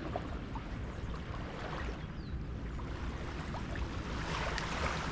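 Wind buffeting the microphone over the steady wash of waves on a beach.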